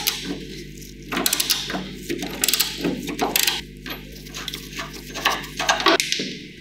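Socket ratchet clicking in short rapid runs as it turns a rusted nut on a 1962 Vespa's steel body, with a small metal nut hitting a concrete floor near the end.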